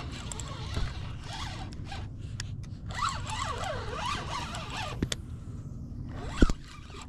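Spinning reel's drag buzzing as a hooked fish pulls line off, its pitch wavering up and down with the run. Near the end comes a single sharp knock.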